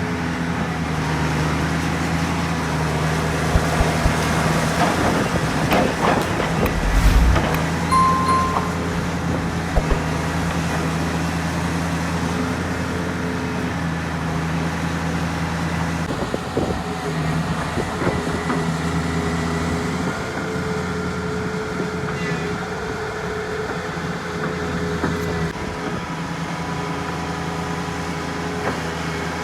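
Heavy diesel engine of construction machinery running steadily, with a cluster of knocks and clanks a few seconds in and a brief beep about eight seconds in.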